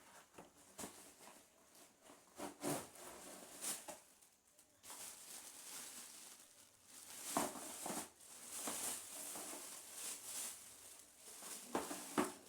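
A ring light's box and packaging being opened by hand: irregular rustling, crinkling and tearing, mostly high-pitched, with scattered knocks and taps. The rustling gets denser from about five seconds in.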